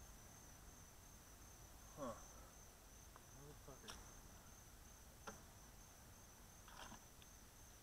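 Faint, steady high-pitched insect trill, with a short mutter about two seconds in and a few faint clicks as the plastic bucket is handled.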